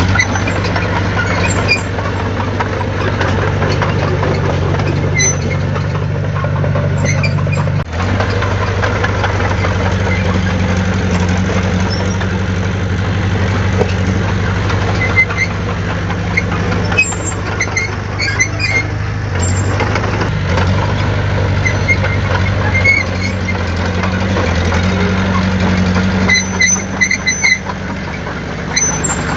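Heavy diesel earthmoving machinery running steadily, with light clicks now and then and a brief drop about eight seconds in.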